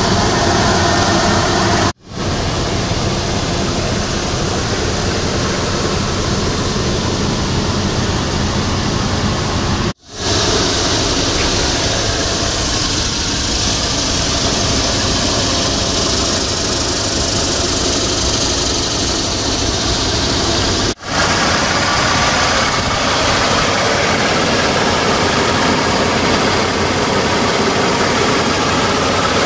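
Third-generation Toyota 4Runner's 3.4-litre four-cam 24-valve V6 running, a steady engine sound with hiss, idling and on the move in spliced clips. It cuts out briefly three times, and the middle stretch carries more hiss while driving.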